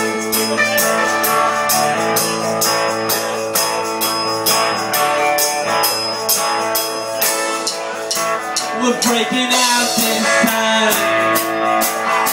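Live rock band playing: amplified electric guitars and bass over a drum kit keeping a steady beat, with sliding guitar or vocal notes near the end.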